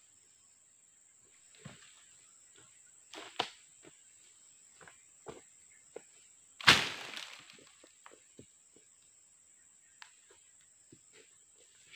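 Oil palm harvesting with a long-poled sickle: scattered knocks, ticks and rustling. A little under seven seconds in comes one loud, heavy thud as a fresh fruit bunch is flung from the pole onto the ground.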